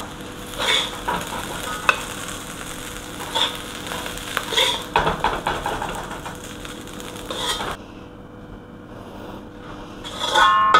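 Steel spatula scraping and clinking against a wok as freshly cooked fried rice is scooped out onto a plate, over a steady sizzle from the hot pan. The sizzle stops abruptly about eight seconds in, and a few notes of music come in near the end.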